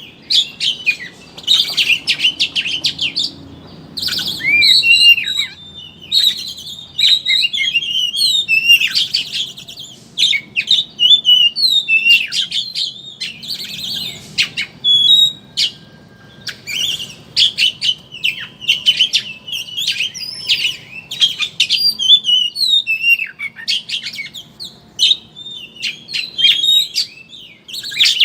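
Oriental magpie-robin (kacer) singing its rapid twittering 'ngeriwik' song: a near-continuous stream of quick, varied chirps and whistled notes broken by a few short pauses.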